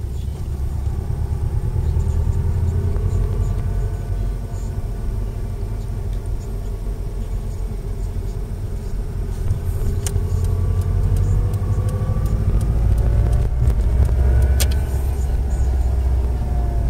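Subaru Impreza WRX on the move, heard from inside the cabin: a steady low road-and-drivetrain rumble with a faint whine on top whose pitch rises and falls with road speed. The whine is the sign of worn centre differential bearings in the five-speed gearbox. There are a few sharp clicks in the second half.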